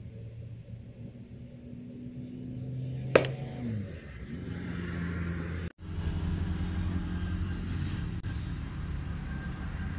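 A steady low engine-like hum from a running motor, its pitch sliding down a little just after three seconds in. About three seconds in there is one sharp knock as a metal oil filter is set down on a wooden workbench. Near six seconds the sound cuts, and a similar low hum carries on at a slightly different pitch.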